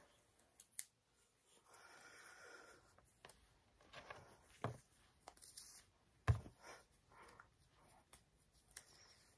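Faint handling sounds of rubber and silicone wristbands being stretched and pulled onto a wrist: soft rustling and light clicks, with a sharper knock about six seconds in.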